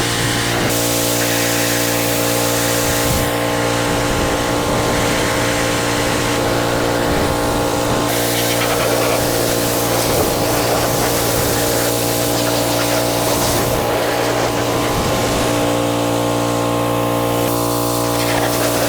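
Pressure washer running steadily, its motor keeping a constant hum while the water jet's spray hiss comes and goes every few seconds as parts are being washed.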